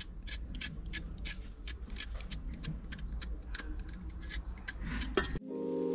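Kitchen knife scraping the skin off a raw carrot in quick repeated strokes, about four a second. The scraping cuts off near the end and music comes in.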